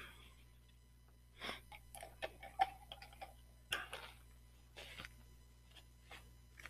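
Faint scattered taps, clicks and short rustles of a sheet of painting paper being handled and moved on a wooden desk, with a brief squeak about two to three seconds in.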